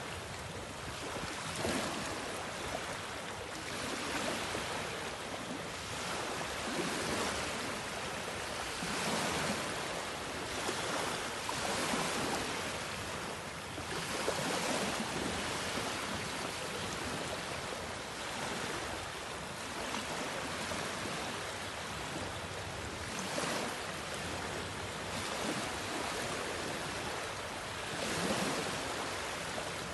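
Small waves washing in over a flat, shallow sandy beach. It is a steady surf hiss that swells and eases every couple of seconds.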